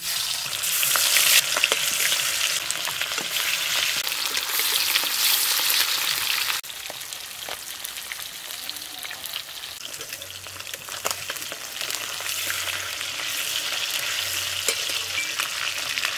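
Marinated stingray pieces frying in hot mustard oil in an aluminium kadai, with a steady sizzle. About six and a half seconds in, the sizzle drops abruptly to a lower level and carries on.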